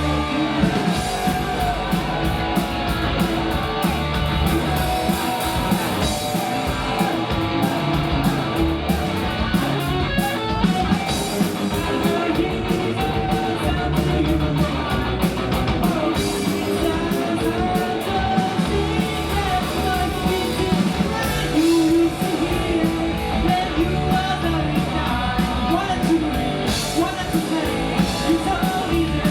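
Rock song with singing over guitar, bass and drums, playing at a steady level throughout.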